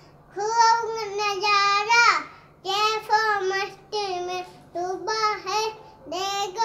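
A young boy singing a devotional naat alone, with no instruments, in short high-pitched phrases with brief breaths between them; one phrase ends in a falling slide about two seconds in.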